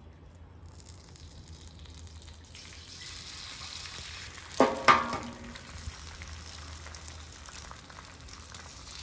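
Eggs frying in butter on a flat-top steel griddle: a steady sizzle that grows a little louder a few seconds in. A little after halfway, two sharp taps of an eggshell being cracked against the steel.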